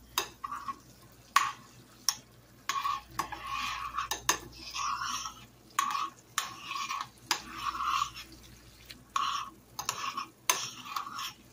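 A utensil stirring and scraping around a pot of melting butter sauce, in irregular strokes with sharp clinks against the pot.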